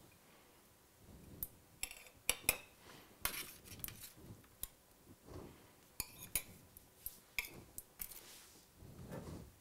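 Metal serving tongs and a spoon faintly clinking and scraping against a perforated stainless-steel steam-oven tray, in irregular light clicks, as steamed vegetables are lifted out onto a plate.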